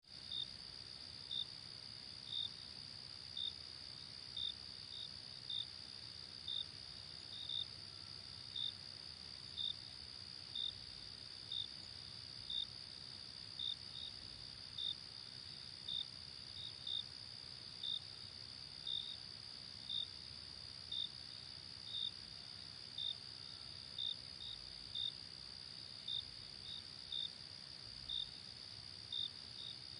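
Crickets chirping: a steady high-pitched trill underneath, with louder separate chirps about once a second, now and then two close together.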